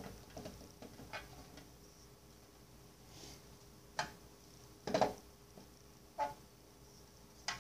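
Scattered light clicks and taps of clear plastic containers being handled on a table, about seven in all, the loudest about five seconds in.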